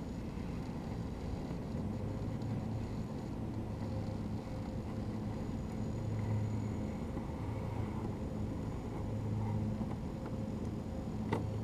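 Holmes Hobbies Revolver brushless motor and drivetrain of a scale RC rock crawler humming low under light throttle, swelling and easing in stretches as the truck crawls up over rocks. A single sharp click sounds near the end.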